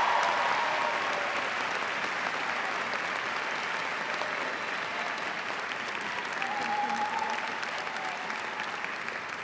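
Audience applauding, loudest at the start and slowly fading.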